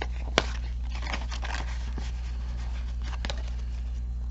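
Paper bills and envelopes being handled: soft rustling with a sharp click about half a second in and another near the end, over a steady low hum.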